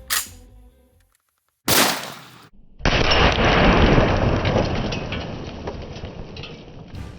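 Ruger Mini-14 rifle firing a .223 round: one sharp shot, then a second, louder blast that rumbles and fades slowly over about four seconds.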